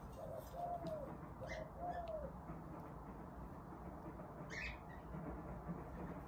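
A dove cooing: three soft coos, each rising then falling, in the first two and a half seconds, faint over a quiet outdoor background.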